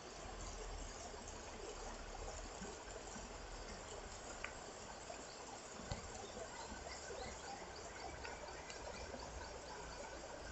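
Faint, steady rush of a mountain river flowing, with two soft clicks about a second and a half apart near the middle.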